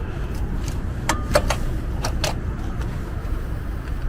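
A few sharp plastic clicks and taps as an e-bike's wiring connector is lined up by its arrows and pushed home, over a steady low rumble.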